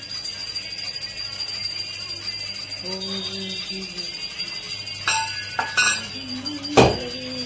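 Puja hand bell rung continuously in a fast, steady jingle during worship, with a sharp knock near the end.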